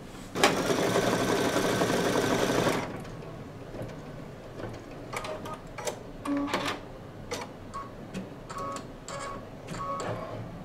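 Brother Luminaire single-needle embroidery machine stitching a fill at speed, loud for the first couple of seconds. It then runs softer, with scattered sharp clicks.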